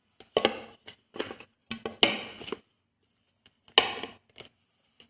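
Plate and plastic bowl knocking and clattering together as a microwave-baked cake is turned out of the upturned bowl onto the plate: a run of sharp knocks over the first three seconds, and the loudest single knock a little under four seconds in.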